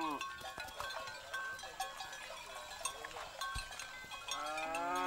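Cattle mooing: one moo dies away at the start and a long moo begins about four seconds in, with faint livestock calls between.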